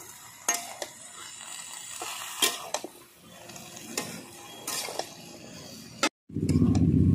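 Steel spatula scraping and clinking against a large metal kadai while stirring spinach and chopped vegetables: a run of irregular clinks and scrapes. About six seconds in, the sound cuts out briefly and a loud low rumble takes over.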